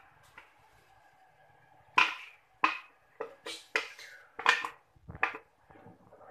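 A run of sharp knocks and clatters on an aluminium wok, about eight in three seconds starting about two seconds in, each ringing briefly: utensils striking the wok as the chilli paste is emptied into it and stirred.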